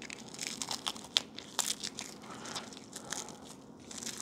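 Cellophane wrap crinkling and crackling as fingers peel it off a small package, in short, irregular crackles.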